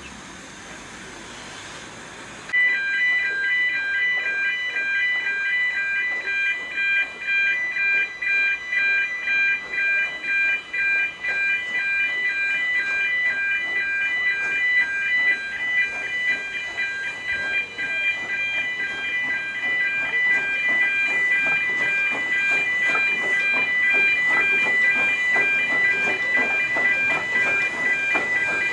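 Road-crossing warning alarm sounding for a train, a steady cluster of high electronic tones that starts suddenly about two and a half seconds in and keeps going. Underneath it, a narrow-gauge Beyer-Garratt steam locomotive running along the street grows louder near the end.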